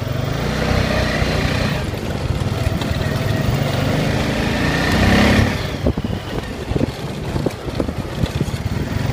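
Honda Foreman Rubicon 500 ATV's single-cylinder engine running under throttle on the move. It revs higher to a peak about five seconds in, then eases off, and irregular knocks and rattles follow as the quad bounces over rough ground.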